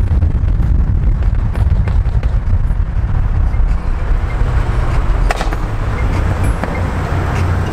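Cars driving side by side on a street, a steady low engine and road rumble heard from a moving vehicle. A couple of short clicks come about five seconds in.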